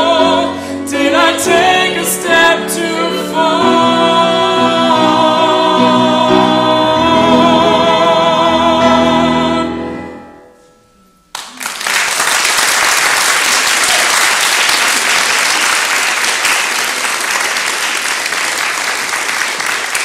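Three voices, two women and a man, sing the closing phrase of a musical-theatre trio in harmony with piano, holding a final chord that fades out about ten seconds in. After a brief silence, an audience's applause starts suddenly and carries on to the end.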